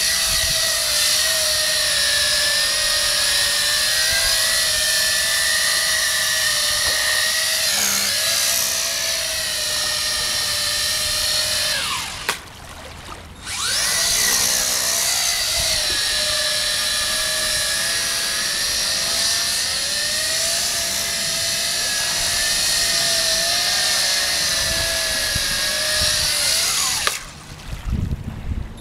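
Toy quadcopter's electric motors and propellers whining as it lifts off and settles on the water, the pitch wavering as the throttle changes. The motors cut out about 12 seconds in and again near the end, each time spinning back up a second or so later.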